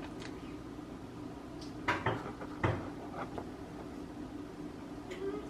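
Two hard knocks about a second apart as things are handled on a kitchen counter, over a faint steady hum.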